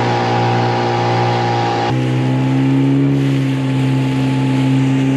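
Outboard motor of an inflatable dinghy running at speed, a steady drone over a hiss of wind and water; its pitch jumps up abruptly about two seconds in.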